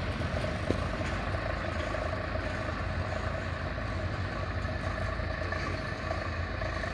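Tractor's diesel engine running steadily as it pulls a seed drill, a constant hum without changes in pitch.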